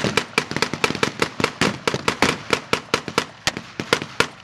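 Many rifles firing blanks in a reenacted WWII firefight: rapid, irregular shots, about five or six a second, some sharp and close and others fainter and farther off.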